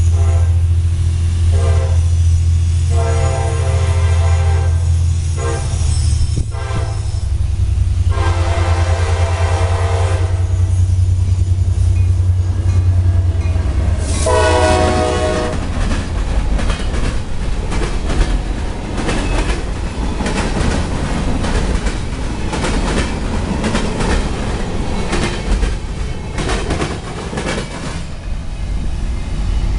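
CSX diesel freight locomotive sounding its air horn in a series of long blasts over the low rumble of its engine as it approaches, then one short, loud blast as it passes about halfway through. After that the freight cars roll by, their wheels clattering and clacking over the track and the diamond crossing.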